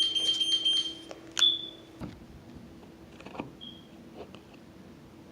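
Electronic beeping: a long, high, steady beep ending about a second in, then one short beep, over a low steady hum that cuts off with a click about two seconds in.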